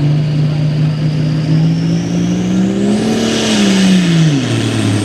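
Hot farm pulling tractor's diesel engine running hard, its pitch climbing steadily, then dropping quickly about four seconds in as the revs come down. A faint high whine rises along with the engine.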